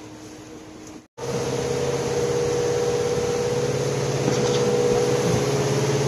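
Fishing boat's engine: a quieter steady hum for about a second, then after a brief break the engine running loud and steady with the boat under way.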